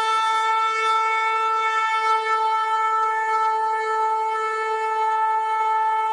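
A shofar sounding one long, steady blast held at a single pitch.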